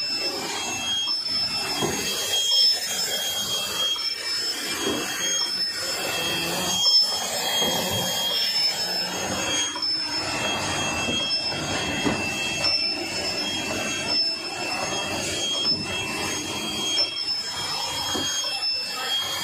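Automatic hot-melt wrap-around labeling machine running, with bottles clattering through its star wheel and conveyor. High-pitched whining tones from the machine come and go every second or two over the steady mechanical din.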